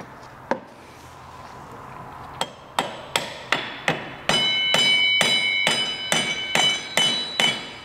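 Mallet tapping a scooter's front axle through the fork: a single tap, then from about two and a half seconds in a steady run of taps, about two and a half a second, with a high metallic ring under the later ones.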